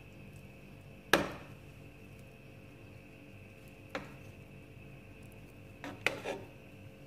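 Metal spoon knocking against a stainless steel cooking pot while rice is scooped out: one sharp clank about a second in, a lighter knock around four seconds, and a quick cluster of knocks near the end, over a low steady hum.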